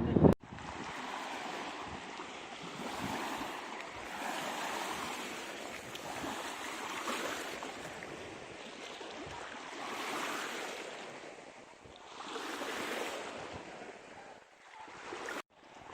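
Small sea waves washing onto a shore, the surf swelling and fading every few seconds.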